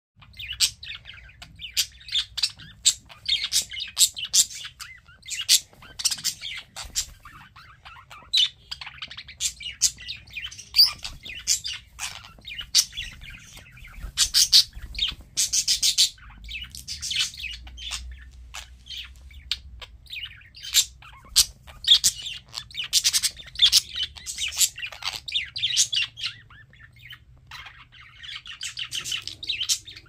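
Pet parakeets chirping and chattering in quick runs of short, high chirps, with brief pauses between the runs.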